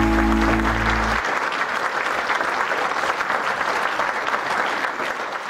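Audience applauding, with the last held chord of the backing music ringing out and ending about a second in. The applause fades toward the end.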